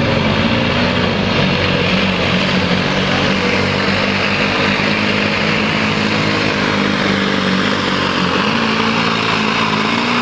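Modified pulling truck's engine held at full throttle at high, nearly constant revs while the truck drags a weighted sled down a dirt track.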